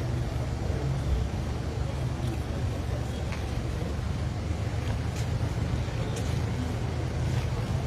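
Steady low rumble of background noise, with a few faint short ticks.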